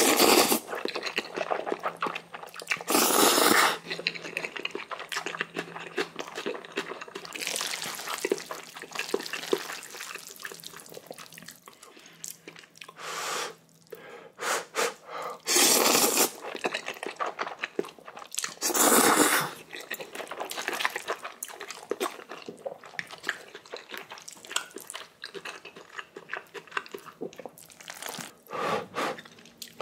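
Close-miked eating of Chapagetti black bean instant noodles and spicy kimchi: steady chewing and crunching, with several loud noisy bursts of about half a second to a second as mouthfuls are taken.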